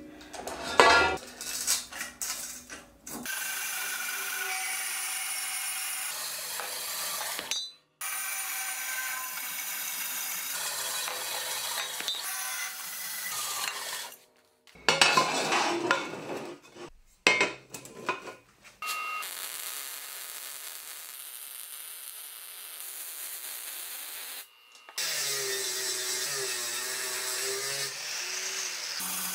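Metal-cutting band saw running steadily as it cuts through square steel tubing, with loud metallic clanks in between from the steel being handled. Near the end an angle grinder with a flap disc grinds down a welded steel joint, its pitch wavering.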